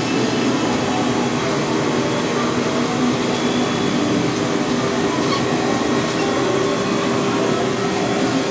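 Kitchen exhaust fan running with a steady drone and a low hum.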